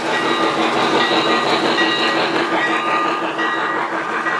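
Three-rail O-gauge model steam locomotive and its cars running past close by, a steady clatter of wheels on the track. The sound thins out about three seconds in, as the engine goes by and the auto-loader cars follow.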